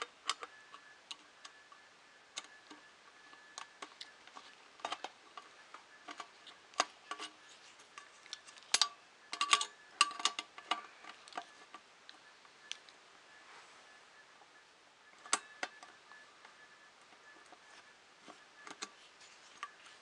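Irregular small metal clicks and taps of a screwdriver turning screws into a metal frame plate, with washers and screw heads clinking. A quick cluster of clicks comes about nine to eleven seconds in.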